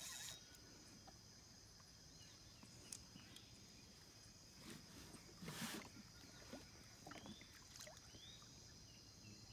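Faint, steady high-pitched drone of rainforest insects, with a few scattered clicks and a brief rush of noise a little past halfway.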